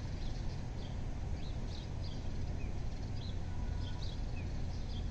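Outdoor background: a steady low rumble with faint, short bird chirps scattered through the middle.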